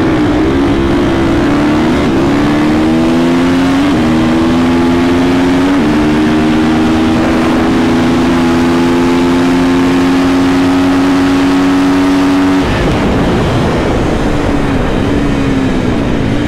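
KTM 450 SMR supermoto's single-cylinder four-stroke engine at full throttle under hard acceleration, shifting up about four and six seconds in, then holding a steady high note until the throttle is shut abruptly about twelve and a half seconds in. After that the engine runs lower and unevenly under wind rush.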